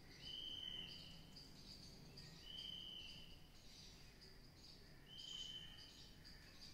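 Faint high-pitched animal calls. Each call is held steady for about two-thirds of a second and repeats every two to three seconds, over a fainter, higher chirring that pulses on and off.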